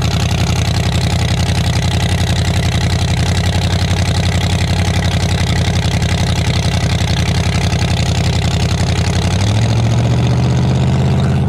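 Mud truck's 383 stroker small-block Chevy V8 idling close to its side-exit exhaust with an even pulsing beat, running on seven of its eight cylinders after losing spark to one. About nine and a half seconds in, the engine speed steps up and holds at a higher idle.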